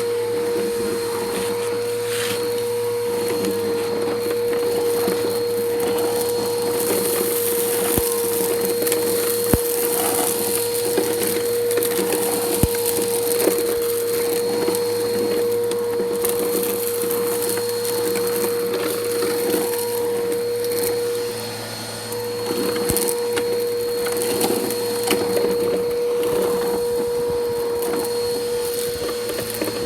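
Bissell PowerForce Helix upright vacuum running with a steady motor whine while it sucks up gritty debris off concrete, making a constant crackling crunch with a few sharp clicks of hard bits going up the nozzle. The sound drops briefly about two-thirds of the way through.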